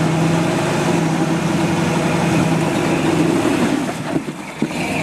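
Engine of a lifted off-road Jeep running steadily as it crawls over rocks. The engine note eases off about three and a half seconds in, and there are a couple of short knocks near the end.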